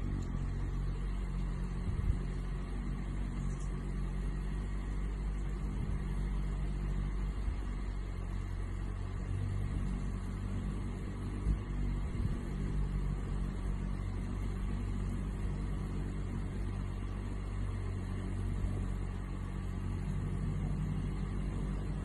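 Male Anna's hummingbird's wings humming as it hovers at a hand-held nectar feeder: a steady low hum.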